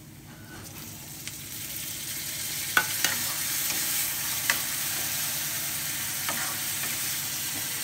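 Chopped tomatoes and onions frying in hot oil in a kadhai. The sizzle swells over the first couple of seconds, then holds steady while a steel ladle stirs, clinking against the pan a few times.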